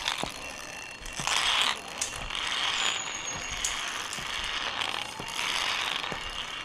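Metal pulley trolley rattling as it rolls along a steel safety cable, in spurts of half a second to a second each, pushed along in stages by someone walking a plank bridge.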